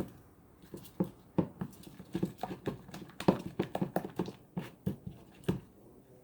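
Spatula stirring a sticky glue-and-foam-bead slime mixture in a bowl, giving an irregular run of short clicks, taps and squelches, several a second, that stops near the end.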